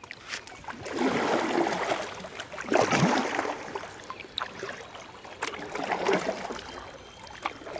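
Water rushing and splashing around a kayak moving through a riffle on a river, rising and falling in swells, with a few light knocks.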